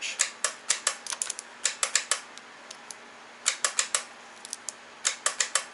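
Warn VR8 winch's solenoids clicking in quick runs of sharp clicks with short pauses, with no motor running. The solenoids are switching as they should while the motor stays dead, which the owner suspects is seized or frozen.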